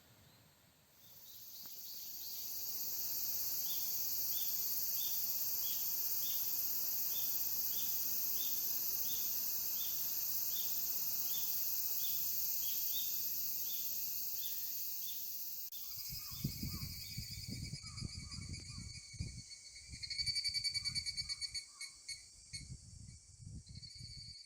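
Insects singing: a steady high-pitched buzzing chorus that swells in about a second in, with a pulse repeating about twice a second. In the last third the song changes to a faster pulsing, over low rumbling from wind or handling noise and a few short lower calls.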